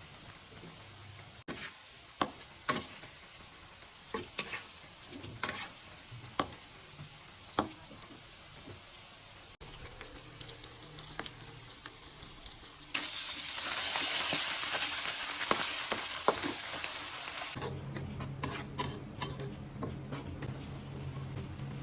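Food frying in hot oil in a pan, with a spatula clicking and scraping against the pan as it stirs. Partway through, a stretch of several seconds of loud, even sizzling gives way to quieter frying with more clinks.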